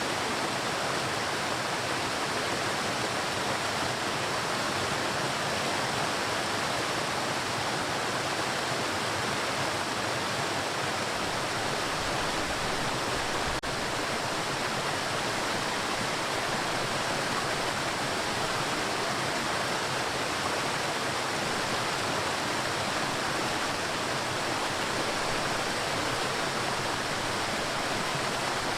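Waterfall rushing, a steady, full roar of falling water with no change in character, and a momentary dip in level about halfway through.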